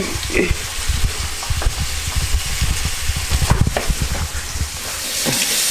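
Hash brown potatoes sizzling in hot grease in a frying pan, with low bumps and rumbles of handling. The sizzle swells louder near the end.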